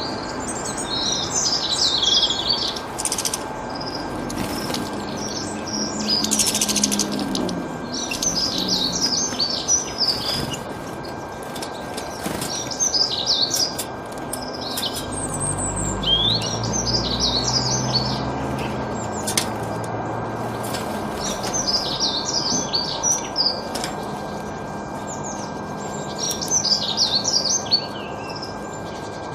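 Small birds chirping and twittering in quick high bouts, repeating every few seconds.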